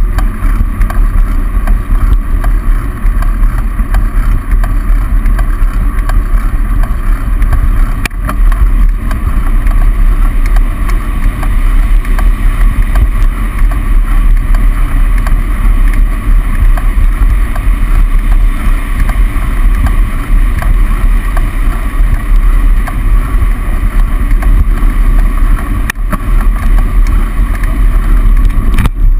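Steady wind rumble on the microphone of a bicycle-mounted camera while riding, mixed with the noise of road traffic in a road tunnel.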